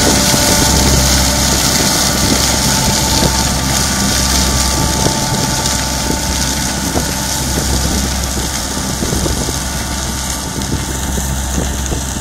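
Diesel engine of a farm machine lifting onions, running steadily under load with the noise of the lifting machinery, growing a little fainter toward the end.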